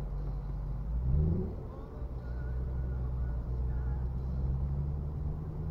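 Car engine and road noise heard from inside the moving car, a steady low drone, with the engine note briefly rising about a second in.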